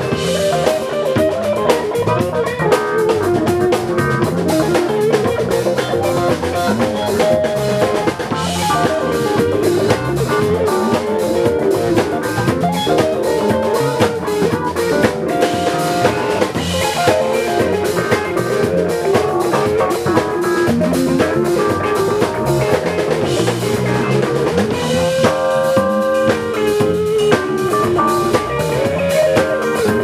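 A band playing live, with a drum kit keeping a steady beat under guitar.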